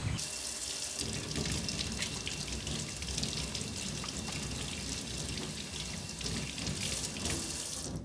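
Tap water running steadily into a sink, splashing with small irregular patters.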